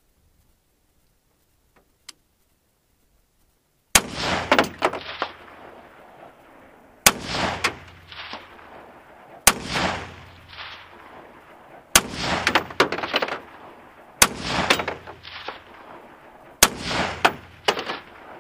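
Six single shots from an ArmaLite AR-15 rifle in 5.56 mm, about two and a half seconds apart, starting about four seconds in. Each sharp crack is followed by a rolling echo that dies away before the next shot.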